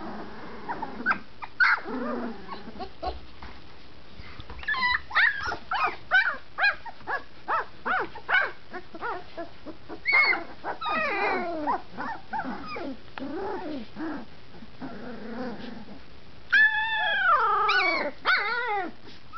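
A litter of 20-day-old puppies, just finding their voices, yipping, whining and barking: many short, high-pitched calls, often overlapping. A louder string of yelps that rise and fall in pitch comes near the end.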